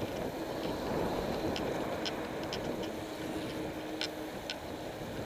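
Riding noise on a road bicycle: a steady rush of wind and tyres on tarmac, with scattered light clicks.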